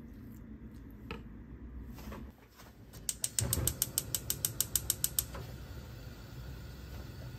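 Gas hob's spark igniter clicking rapidly, about seven clicks a second for two seconds, then a steady hiss as the burner lights.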